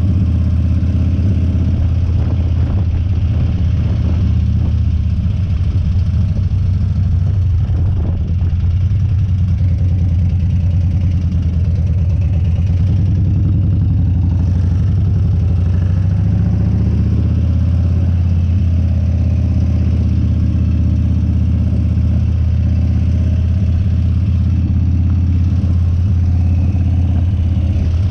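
Harley-Davidson Dyna's V-twin engine running steadily and loudly, its low pitch shifting slightly about halfway through.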